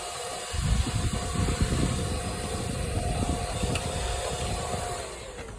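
Vacuum cleaner running, its nozzle rumbling over a car floor mat, then switched off near the end as the motor whine falls away.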